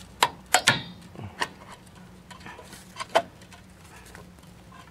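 Brake spring pliers clinking against a steel brake-shoe return spring and shoe hardware on a drum brake as the spring is worked toward its post. A handful of sharp metallic clicks come in close pairs, one near the start and another about three seconds in.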